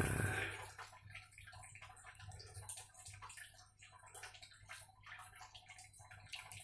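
Faint, irregular clicks and light rustles, with a brief louder rustle right at the start, over a low steady hum.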